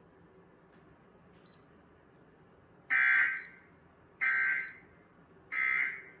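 Emergency Alert System SAME digital data tones: three identical short bursts of buzzy two-tone data just over a second apart, starting about halfway in. Coming straight after the spoken test message, they are the end-of-message code that closes the Required Monthly Test.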